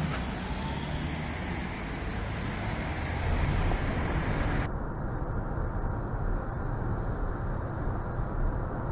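A heavy truck's diesel engine running with passing car traffic, heard in the open. About halfway through it switches abruptly to the duller, muffled road and engine noise inside a car cruising at about 95 km/h.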